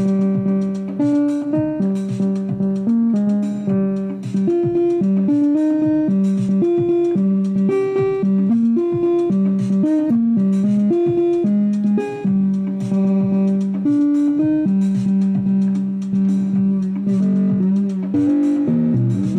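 Instrumental music jam: a melodic line of pitched notes, stepping between a recurring low note and higher ones about every half second, with pitch slides near the end.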